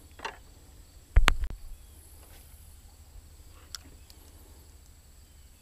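A single sharp thump about a second in, with a short decaying rumble, over a quiet outdoor background; a faint click comes later.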